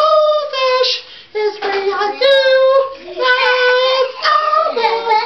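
High-pitched singing in several short phrases of held notes, with a brief pause about a second in.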